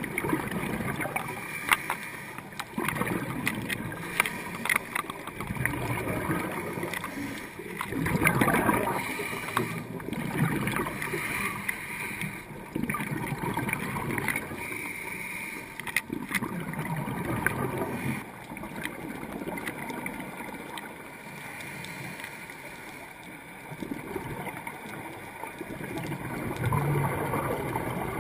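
Underwater sound of scuba breathing through a regulator, with surges of exhaled bubbles gurgling up every few seconds.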